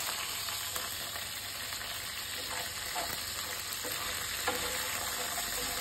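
Whole coriander seeds and dried red chillies frying in a little oil in a pan, a steady sizzle as they are stirred.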